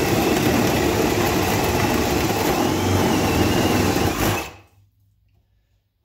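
Ryobi One+ HP brushless hammer drill running at high speed, boring a 1-inch spade bit through a block of wood with a steady motor hum and the rasp of the bit cutting. It stops about four seconds in, once the bit is through the wood.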